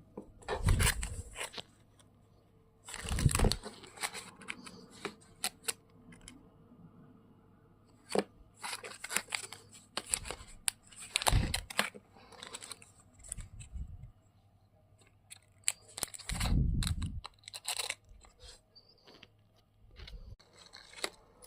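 Plastic wrapper of an Umaibō puffed corn snack crinkling and tearing in irregular bursts with pauses between. A few dull thuds come along with some of the bursts.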